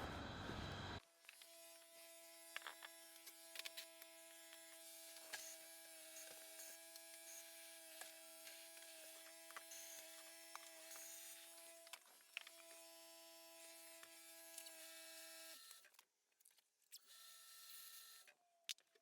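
Faint steady electrical hum, several level tones together, with scattered light clicks. It stops about three-quarters of the way through. A loud noisy sound in the first second cuts off abruptly.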